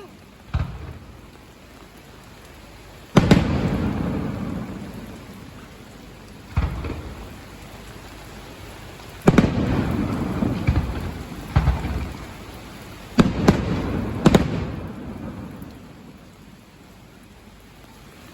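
Firework shells bursting overhead: several loud bangs a few seconds apart, each followed by a long rolling rumble as the boom echoes away. Heavy rain hisses steadily underneath.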